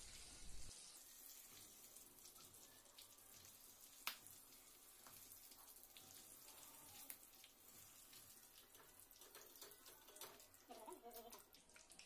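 Faint sizzle and crackle of slit green chillies deep-frying in hot oil, with one sharp click about four seconds in.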